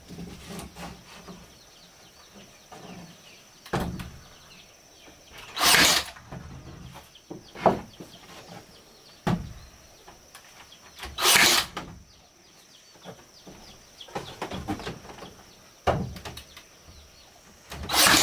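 Cordless nail gun firing into wooden wall planks three times, about five to six seconds apart, each shot a short loud burst. A few sharp wooden knocks come between the shots.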